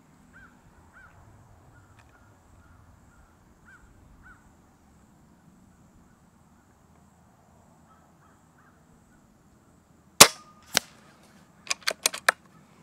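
A single shot from a Hatsan Flash Pup .22 PCP air rifle, its report damped by the baffled, shrouded moderator: one sharp crack about ten seconds in, with a second, fainter crack about half a second after it. This is followed by about five quick metallic clicks as the side-lever action is cycled to load the next pellet.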